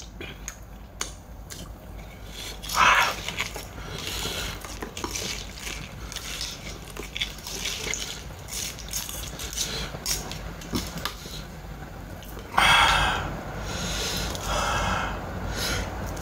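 Close-up wet eating sounds of raw crab salad: chewing, sucking and squishing with small clicks, and two louder breathy bursts about three seconds in and again near the end.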